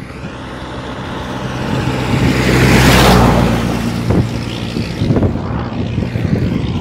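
A motor vehicle passing close by on a road bridge: its engine and road noise build to a peak about three seconds in, then fade.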